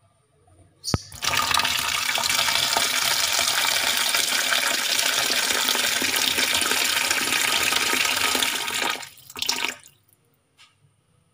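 Kitchen tap running water hard into a plastic bowl of chicken pieces in a steel sink, starting just after a sharp click about a second in. It runs steadily for about eight seconds, then tails off and is shut off.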